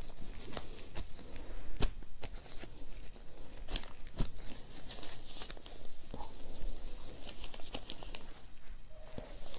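A kurta's cloth being smoothed and shifted by hand over newspaper on a board: soft rustling and brushing, with scattered short clicks and taps.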